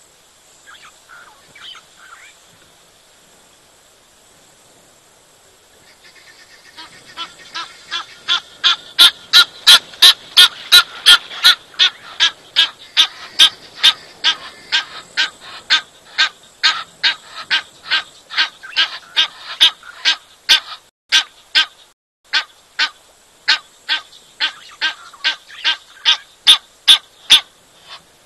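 Leopard lapping water: a fast, even run of loud wet laps, about three a second, starting some six seconds in, with one short break about three quarters of the way through.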